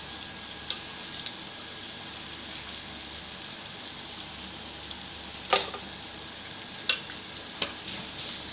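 Oil sizzling steadily as dough balls deep-fry, with a few sharp clicks along the way, the loudest about five and a half seconds in.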